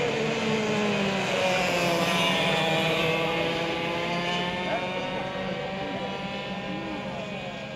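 Several racing karts' two-stroke engines running hard around the track, their engine notes overlapping and sliding up and down in pitch as the karts accelerate, brake and pass.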